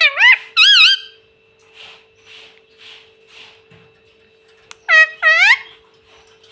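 Rose-ringed (ring-necked) parakeet calling: three quick notes that bend up and down in pitch at the start, then two more about five seconds in. A steady low hum runs underneath.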